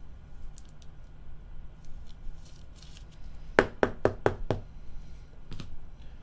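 Hands handling trading cards and their packaging on a tabletop: scattered light clicks, then a quick run of about five sharp knocks about three and a half seconds in.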